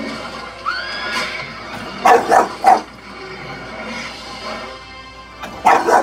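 English bulldog barking at the TV: three quick barks about two seconds in and another near the end, with a short rising whine about a second in, over film soundtrack music from the television.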